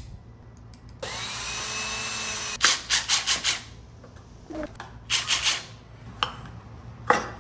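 Cordless drill spinning up and running steadily for about a second and a half, driving a screw out of the wooden end plug of a cardboard shipping tube. Then come bursts of light knocks and rattles as the wooden plug is worked loose and pulled out of the tube.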